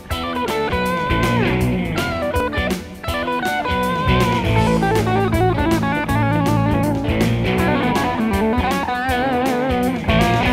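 Instrumental intro music: an electric guitar plays lead lines with wavering, sliding notes over bass and drums.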